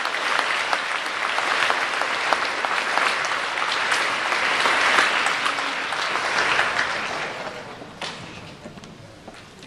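Crowd applauding steadily, dying away about seven to eight seconds in.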